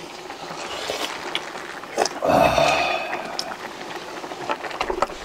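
People eating hot kimchi stew: spoons knock and scrape against a metal pot in scattered clicks, with one louder slurp of hot broth about two seconds in.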